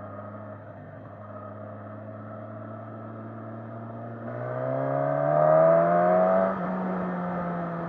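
2019 Suzuki Katana's inline-four engine running steadily on a light throttle, then accelerating from about four seconds in with a rising, loudening note. The throttle is rolled back at its loudest point, about six and a half seconds in, and the note settles to a steadier, higher run.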